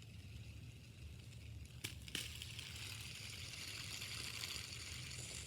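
Steady low hum of a car's cabin with the engine idling, with two sharp clicks about two seconds in, followed by a soft crackly hiss.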